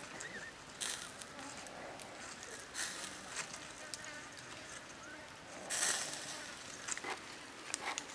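Raw, seasoned chicken wing pieces being handled and pushed onto a thin green stick skewer: short wet, crackly rustles several times, the longest about six seconds in.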